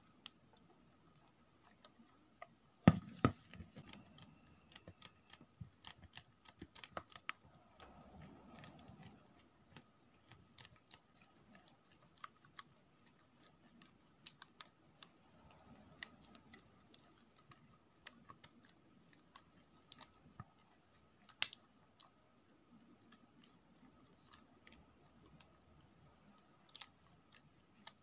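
A plastic spoon stirring slime in a ceramic bowl, tapping and scraping the bowl in irregular clicks, with one sharp knock about three seconds in.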